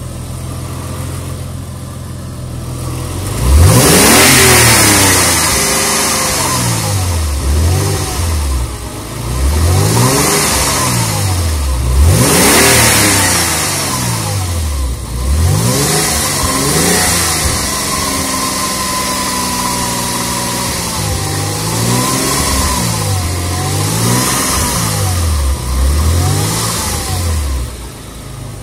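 1999 Porsche Boxster 2.5's flat-six engine idling, then revved again and again, its pitch rising and falling every couple of seconds, held at a steadier higher speed for a few seconds in the middle. The owner asks whether it makes a strange noise.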